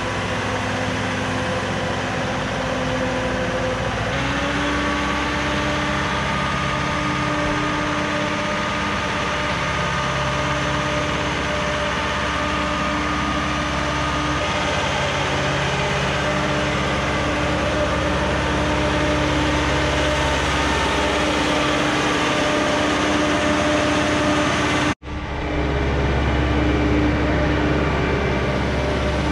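Boat travel lift's engine running steadily as the hoist drives along with a boat in its slings, with a steady whine over the drone. The pitch steps up slightly about four seconds in. The sound drops out for an instant near the end and comes back with a heavier low hum.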